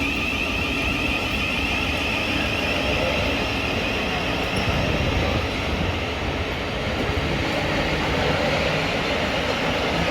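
Electric train running: a steady rumble with a high whine.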